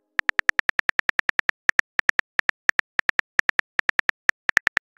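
Rapid phone keyboard key-click sounds as a text message is typed out letter by letter: short, sharp, slightly pitched ticks at about seven a second, with brief pauses between words.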